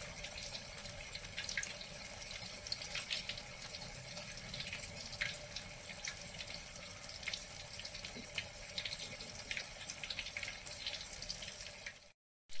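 Batter-coated tofu deep-frying in hot oil in a wok: a steady sizzle full of small crackles and pops. It cuts off abruptly near the end.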